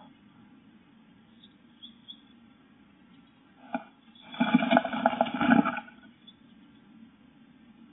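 Blue tit moving about inside a wooden nest box: a single click a little before the middle, then about a second and a half of scuffling and fluttering against the wood and nest moss, heard close inside the box.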